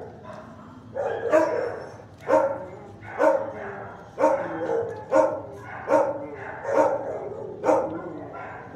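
A dog barking over and over, about one bark a second.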